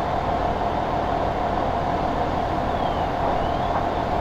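Diesel fire apparatus engines running steadily at an active structure fire, an even mechanical drone with a low hum.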